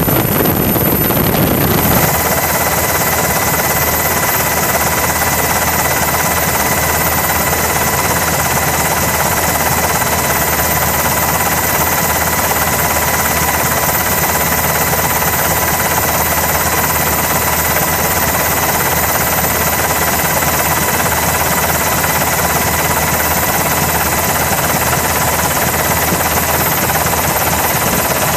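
Helicopter noise heard from inside the aircraft: a steady drone of rotor and engine with a high, steady whine over it.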